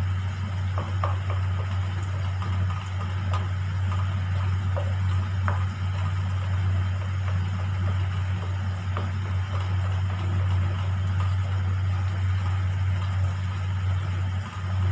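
A steady low hum, with light scrapes and taps of a wooden spatula stirring khoya roasting in ghee in a non-stick kadhai.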